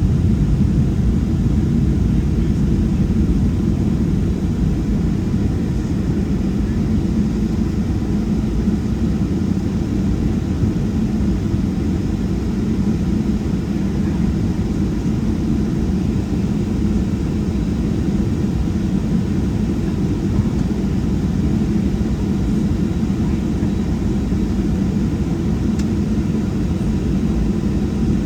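Steady low rumble in the cabin of a Boeing 737-700 taxiing, its CFM56 engines at low taxi power.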